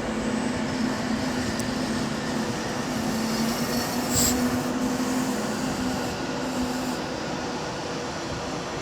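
Avanti West Coast Class 390 Pendolino electric train at the platform, a steady hum from its equipment over a constant rushing noise, with one short high burst of noise about four seconds in.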